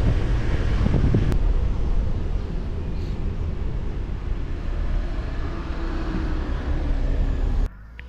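Road and engine noise of a car driving on a winding mountain road, heard from the car: a steady low rumble that eases slightly after a couple of seconds and cuts off abruptly near the end.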